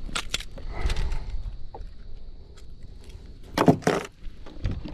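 Handling noise of a hook being worked out of a snook with fishing pliers on a plastic kayak: clicks, knocks and small rattles of the pliers and lure, with a louder cluster of knocks about three and a half seconds in.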